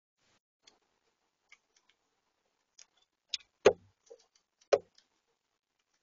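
A common starling on a plastic bird feeder, tapping and knocking on it: a few faint clicks, then two loud knocks about halfway through and a second later.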